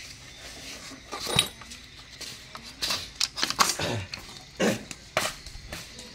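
Small brush-cutter engine being handled and readied for a start test: several separate knocks, clatters and scrapes, a few with a short falling whirr, and no engine running.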